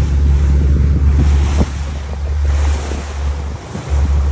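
Wind buffeting the microphone as a heavy low rumble over the wash of sea water. The rumble eases briefly about a second and a half in and again near the end.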